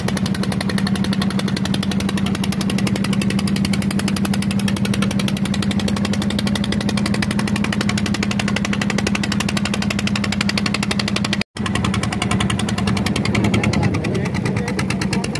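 Fishing boat's engine running steadily with a fast, even pulse and a constant low hum. The sound drops out for an instant about eleven and a half seconds in.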